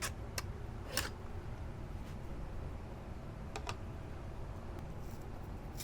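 A few small, sharp clicks and taps over a low steady hum, from old stick-on wheel weights being pried off a motorcycle wheel rim.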